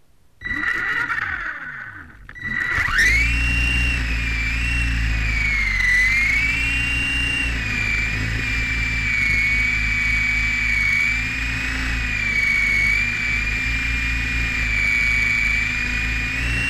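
RC helicopter's motor and rotor, heard from a camera mounted on the helicopter itself, starting up about half a second in, dropping briefly around two seconds, then spinning up into a steady high whine over a low buzz as it lifts off. The whine's pitch rises and falls slightly as it flies.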